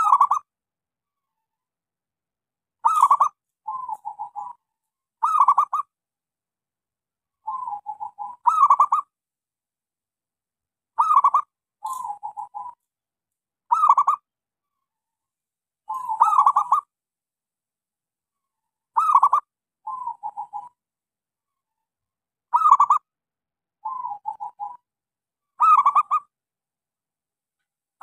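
Zebra dove (local perkutut) singing: short bursts of rapid staccato cooing notes, a louder phrase alternating with a softer trilled one, repeated every one to three seconds with silence between.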